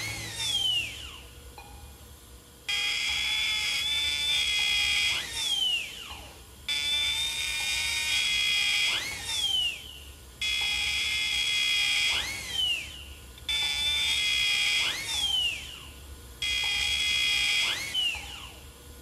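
Electric power drill boring through a skull, its high whine running in bursts of about four seconds that start abruptly, with rising and falling pitch sweeps between the bursts.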